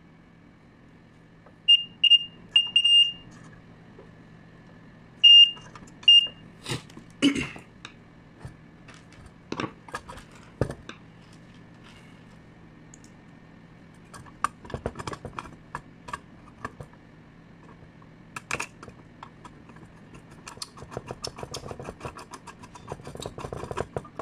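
Several short, high electronic beeps in two quick groups, then clicks, knocks and a dense metallic rattle and scrape of a screwdriver and hands working among the metal parts inside a stage light's lamp housing.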